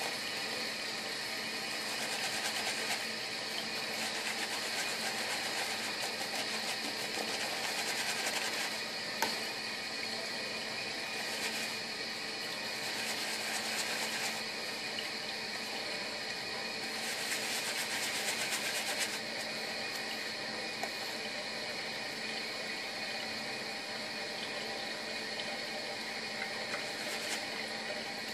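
Shaving brush working shaving cream into a lather in the palm: wet, crackly brushing that swells in brighter spells. Under it runs a steady background hiss and hum.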